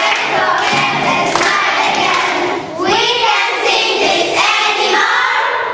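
A loud crowd of children's voices, many at once and overlapping.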